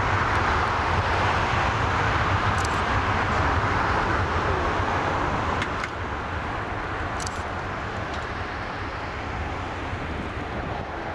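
Jet engine noise from a Boeing 747-400's four turbofans at takeoff power during the takeoff roll: a loud, steady rush with a low rumble beneath. It falls off somewhat a little over halfway through as the aircraft runs away down the runway.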